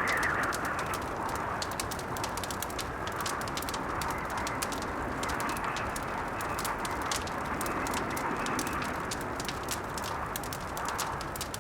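Crackling wood fire with frequent sharp pops, over blizzard wind that swells and eases.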